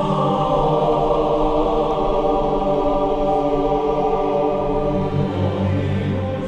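Background music of long held chords, growing quieter near the end.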